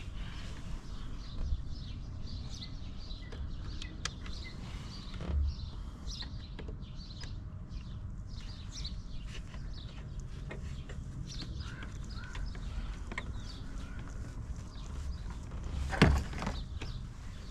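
Scattered light clicks and clinks of hand tools and parts being handled in a car's engine bay, with one louder knock about sixteen seconds in.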